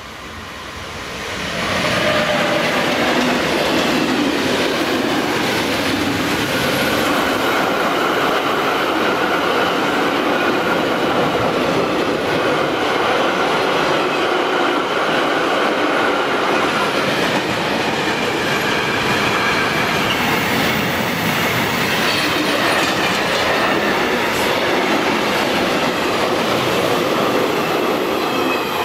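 Freight train of empty double-deck car-carrier wagons, hauled by an electric locomotive, rolling past close by. It swells over the first two seconds to a loud, steady rumble and clatter of wheels on rail, with a thin squeal from the wheels running through it.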